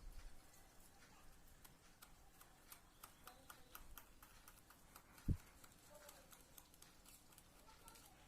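Near silence with faint, irregular ticks and a single low thump about five seconds in.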